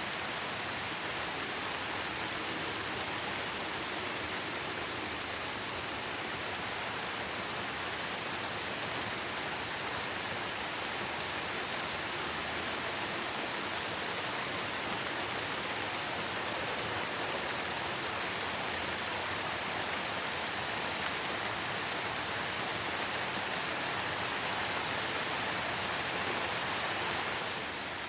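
Steady rain falling, an even hiss that eases slightly just before the end.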